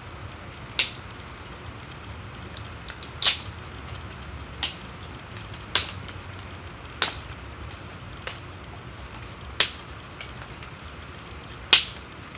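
Dry sticks being broken for kindling: about ten sharp, short cracks at irregular intervals, one quick cluster of three about three seconds in, over a steady outdoor hiss.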